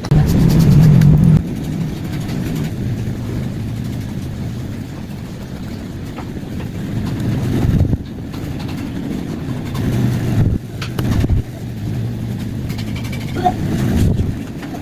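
Low, steady rumble of vehicle engines, louder for the first second or so, with a few brief swells later on.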